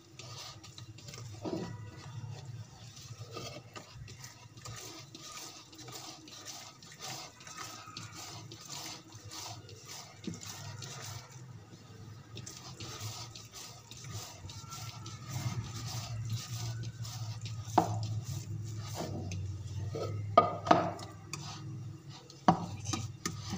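Hands kneading soft, freshly oiled wheat-flour dough in a plastic bowl: repeated wet squishing and pressing strokes over a steady low hum. There are several sharp knocks in the last few seconds.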